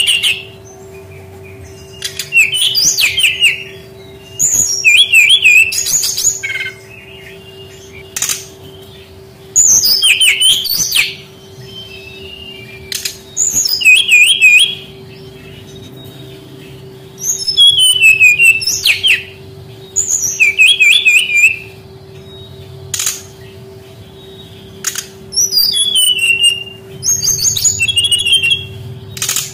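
Brown-chested jungle flycatcher (sikatan rimba dada coklat) singing: about eight short phrases of quick, high, twittering notes, each one to two seconds long, with pauses between them, over a steady low hum.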